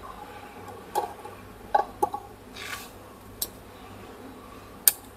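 A few light, sharp clicks of metal tweezers touching a laptop motherboard as the board is shorted to discharge it, the sharpest click near the end.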